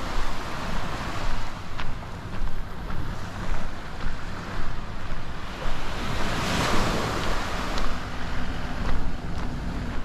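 Sea waves washing onto a beach, with wind buffeting the microphone. One wave rushes in louder a little past the middle.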